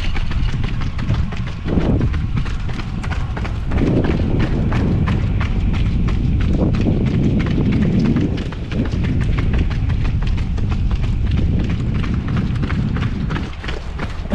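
Running footsteps of two runners slapping the pavement at a fast pace, over heavy wind rumble on the camera microphone.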